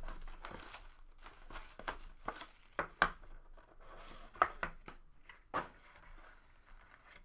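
Packaging of a trading card box being torn and crinkled open: irregular sharp rips and crackles over a soft rustling.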